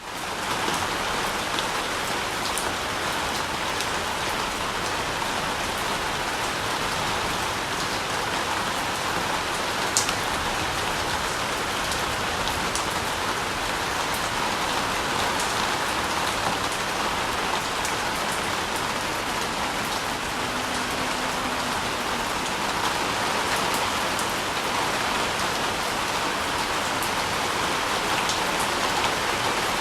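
Steady rain falling, an even hiss with scattered sharper drop ticks, one louder tick about ten seconds in.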